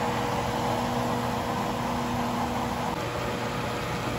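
A covered frying pan of vegetables simmering: a steady hiss with a low hum under it, which changes a little about three seconds in.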